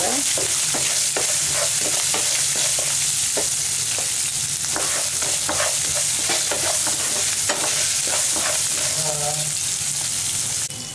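Oil sizzling in a pan as a tempering of mustard seeds, dals, peanuts, cashews, curry leaves and green chillies fries, with a spatula stirring and scraping across the pan in many short knocks. The sizzle drops abruptly near the end.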